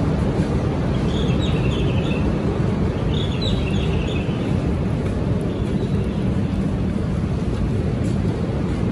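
Steady low rumble of a busy Shinkansen station platform beside a standing bullet train. Two short bursts of high, bird-like chirping come about one and three seconds in.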